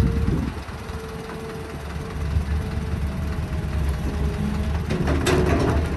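Heavy diesel engine of an excavator running steadily at work, with a steady whine over its low drone. About five seconds in, a brief rattle of sharp clanks and scrapes.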